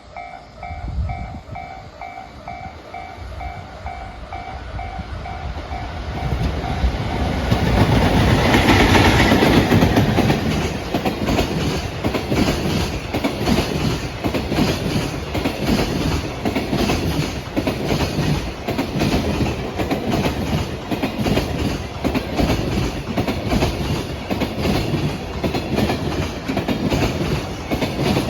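A level crossing warning bell rings in a steady repeating pulse as a JNR Class EF65 electric locomotive approaches, growing louder and passing loudest about eight to ten seconds in. The train of Koki container wagons then rumbles by, its wheels clattering over the rail joints in an even rhythm.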